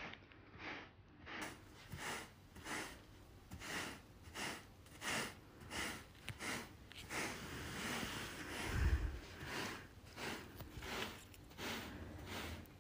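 Rubber broom raked across carpet in quick, even strokes, about two a second, each a soft brushing scrape as it pulls pet hair out of the pile. One dull bump about nine seconds in.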